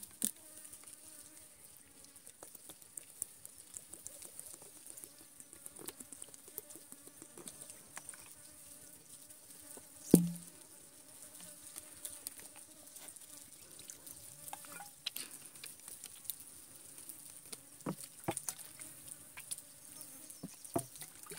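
Steady high-pitched drone of insects, with a faint buzz like a fly through the middle, scattered small clicks, and one loud knock about halfway through.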